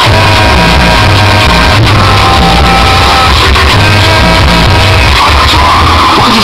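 Loud music with heavy bass and a sung voice, played through a Chevrolet Corsa's car sound system.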